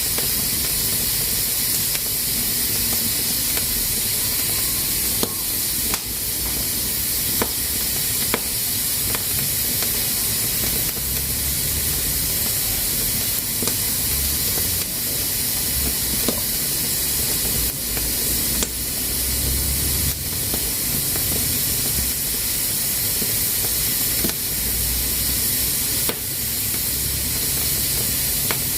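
Pressure cooker hissing steadily as steam escapes from its valve, with a few irregular sharp clicks over the hiss.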